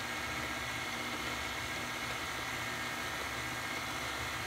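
Electric stand mixer running steadily on low speed, its beater turning through thick chocolate cake batter as flour is worked in. The motor makes an even hum with a steady whine.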